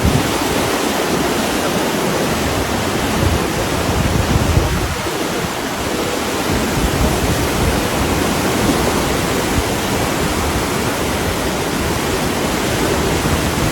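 Flash-flood river in spate rushing loudly and steadily, with a low rumble underneath.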